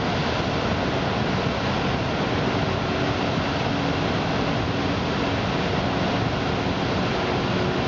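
Whitewater rapids of the Niagara River pouring over rock ledges into a hydraulic jump: a steady, even rush of churning water.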